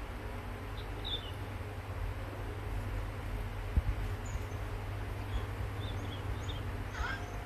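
Outdoor ambience: a steady low rumble with scattered short, high bird chirps, one sharp knock a little past halfway, and a falling call near the end.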